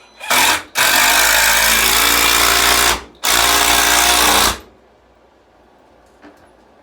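A handheld power tool is running into a wooden board in three bursts: a short one, then a steady run of about two seconds, then after a brief stop another run of about a second and a half. It is pre-drilling or driving screws while a wooden rack is being built.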